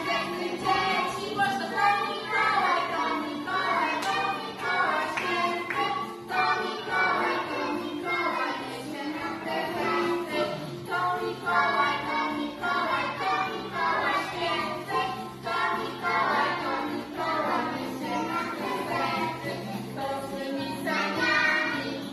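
Children's song: a group of children's voices singing over instrumental backing, going on without a break.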